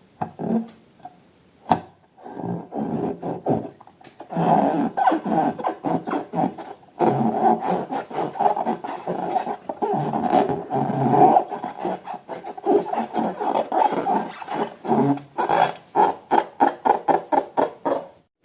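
Slime being squeezed and worked by hand, with irregular wet squelches and rubbing that break into a fast run of short pops near the end.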